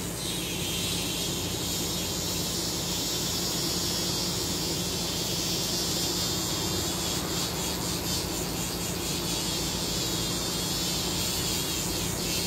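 Small battery-powered handheld mini mixer buzzing steadily, its whisk spinning in a small glass dish to blend eyebrow tint cream with 3% developer.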